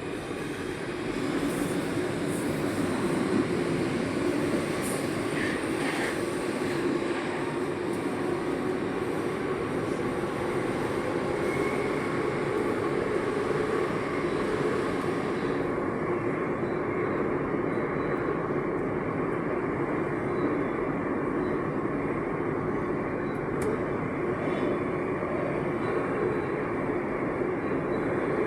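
Santiago Metro AS-02 train running, a steady rumble heard from inside the car. It builds over the first second or two, and its higher hiss drops away a little past halfway.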